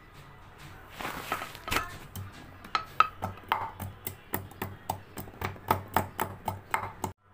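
A pestle pounding ginger and garlic in a mortar: a quick, even run of sharp knocks, about three a second.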